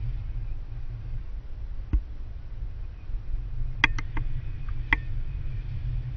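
Wind buffeting the camera microphone in flight under a tandem paraglider, a steady low rumble, with a few sharp clicks: one about two seconds in and a quick cluster of four between about four and five seconds in.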